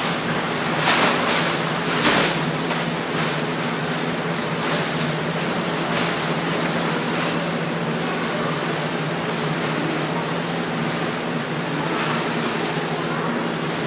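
Continuous rustling and swishing of paper-strip costumes as the performers move, louder for a moment about one and two seconds in, over a steady low hum.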